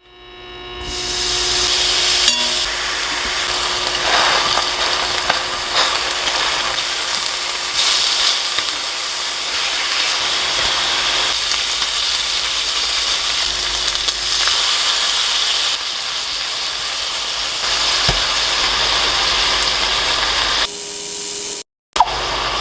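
Food sizzling steadily in a hot frying pan, with a few light clicks of a utensil. The sound cuts out abruptly for a moment near the end.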